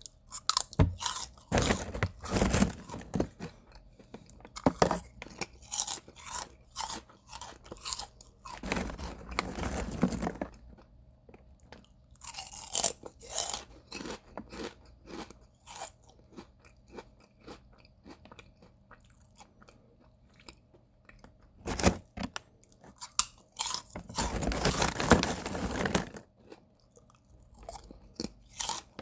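A person eating potato chips close to the microphone: bursts of sharp crunching bites and chewing, in irregular clusters with a few brief pauses.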